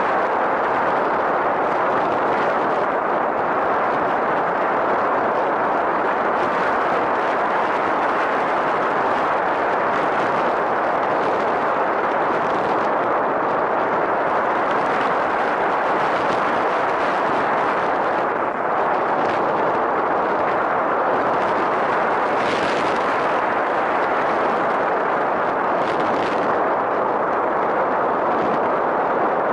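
Steady rushing noise of airflow and the motor and propeller, picked up by a camera riding on a radio-controlled model aircraft in flight.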